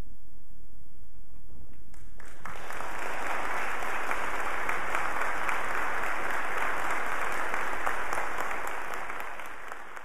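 Audience applauding, starting suddenly about two seconds in after a short quiet, then fading away near the end.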